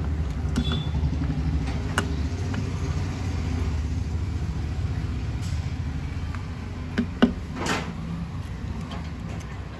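A steady low engine rumble from a vehicle running nearby, with a few sharp metallic clinks about seven seconds in as metal engine parts are handled.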